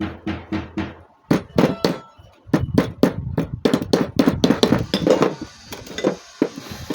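Hammer striking metal hinge parts in quick runs of blows, about five a second, with short pauses about one and two seconds in and sparser blows near the end.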